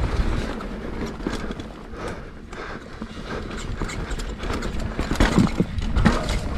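Downhill mountain bike rolling fast over a muddy, rocky trail, heard from a camera mounted on the bike: a rattle of knocks and clatter from the tyres, suspension and chain, with wind noise. The knocks get harder and closer together over rocks in the last two seconds, among them a rim strike that leaves the tubeless tyre flat.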